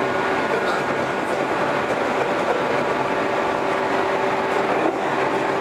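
JR 115-series electric train running at a steady speed: steady rail and wheel noise with a motor and gear hum held at a constant pitch.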